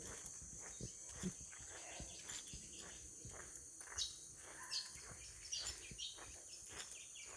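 A steady high-pitched insect chorus, like crickets, with a few short bird chirps coming about four to six seconds in.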